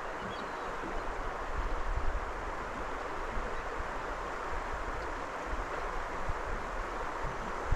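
Steady rushing of water and wind, with low gusts of wind buffeting the microphone.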